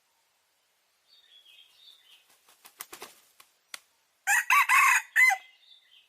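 Chickens: faint high peeping, then a quick run of wing flaps, then a loud rooster crow in three arching segments a little past the middle.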